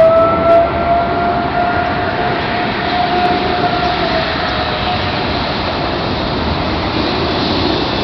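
Distant outdoor warning siren, most likely a Federal Signal 2001, sounding a lahar warning test: one steady tone that drifts slightly higher and fades out about five seconds in. It sits over a loud, steady background rumble.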